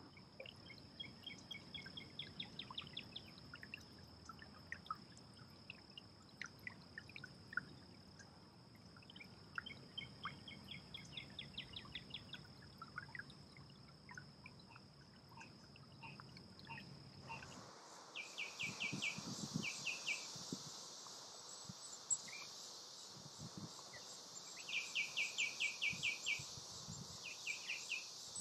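Riverside nature ambience: birds calling in short rapid trills over a steady high insect drone. About two-thirds of the way through, the insect sound changes to a louder, wider hiss and the bird trills come louder and closer.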